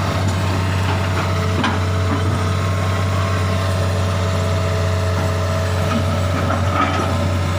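Heavy diesel engine of an excavator running steadily at an even speed, with a few faint knocks over it.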